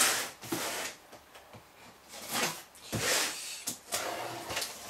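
A cardboard shipping box slid and handled on a tabletop, then its packing tape pulled and torn off the top: several separate bursts of scraping and tearing noise.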